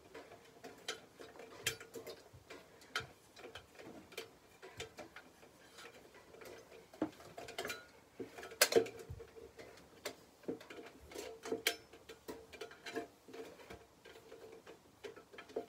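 Irregular clicks and light metallic taps of a chrome desk fan being handled, its grille and base knocking as it is worked on, with the loudest knocks about halfway through, over a faint steady hum.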